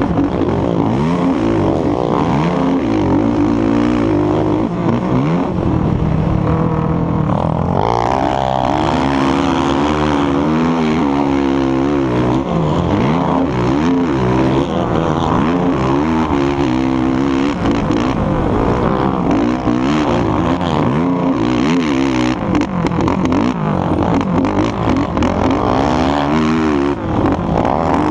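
Sport quad (ATV) engine at racing load, its pitch rising and falling over and over as the rider works the throttle and gears, heard close-up from the rider's helmet-mounted camera.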